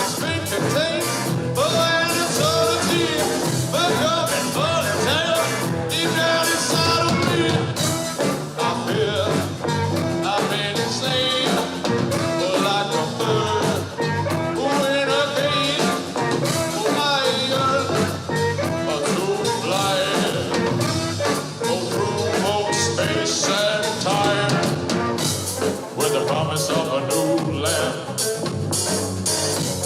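A live rock band playing a song, full band with a steady beat.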